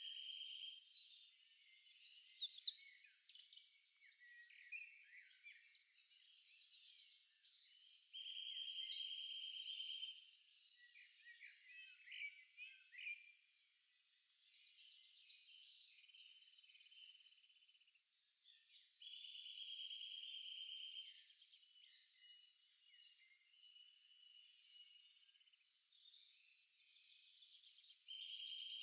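Birds chirping in quick high notes, with a buzzy trill that comes and goes several times and two louder falling calls about two and nine seconds in.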